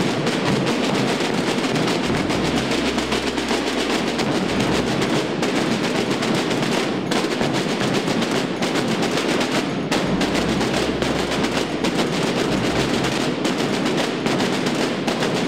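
A Holy Week drum band of snare drums and large bass drums playing together: a dense, continuous stream of fast snare rolls and strokes, with the bass drums coming in heavily for stretches.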